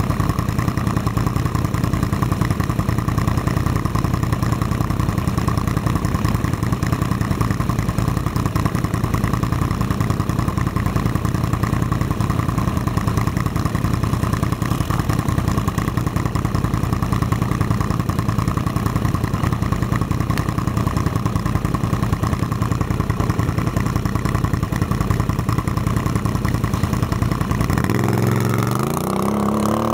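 ATV engine running at a steady speed, its pitch rising near the end as it revs up.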